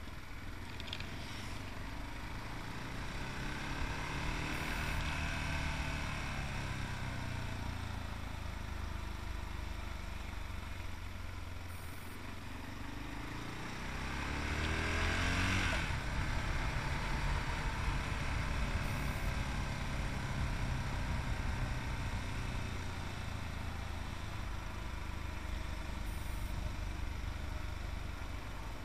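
Yamaha MT-03's 660cc single-cylinder engine running under way, its revs rising and falling several times over a steady rushing noise. The note climbs to its loudest about halfway through, then drops away abruptly.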